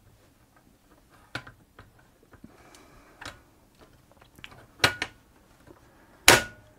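Plastic top cover of a Bernina 930 sewing machine being set back onto the machine: four sharp clicks and knocks, the last two loudest.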